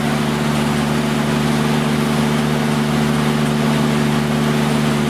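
River cruise boat's engine running steadily under way, a constant drone with an even hiss over it.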